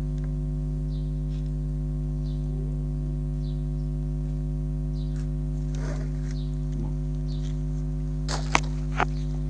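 Steady electrical hum in the recording, with two sharp clicks about half a second apart near the end.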